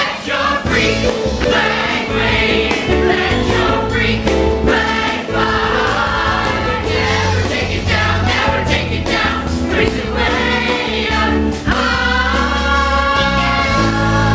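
Upbeat pop musical-theatre song: a group of voices singing together over a steady bass and beat.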